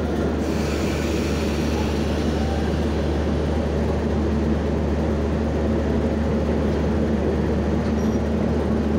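Diesel locomotive engine running steadily with a deep, even hum as the locomotive creeps up to a coach for coupling.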